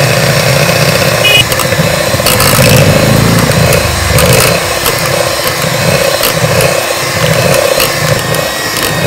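Electric hand mixer running in a steel bowl, beating flour into a thick biscuit dough. The motor note swells and fades about once a second as the beaters work through the dough, with a few short clicks.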